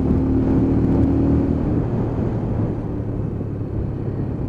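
Lexmoto Ranger 125's single-cylinder four-stroke engine heard from the rider's seat on the move, holding a steady note for the first second or two, then easing off and getting a little quieter as the throttle is rolled back.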